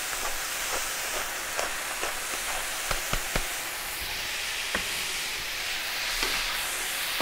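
Cubes of meat sizzling steadily as they brown in hot butter in a stainless frying pan, with scattered light ticks.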